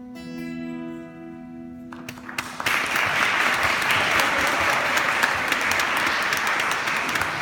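The last chord of an acoustic guitar rings out and fades. An audience then starts applauding about two and a half seconds in, louder than the guitar, and keeps clapping.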